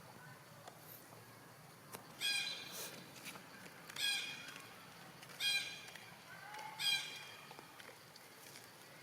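Four short, high-pitched animal calls, each about a second and a half after the last.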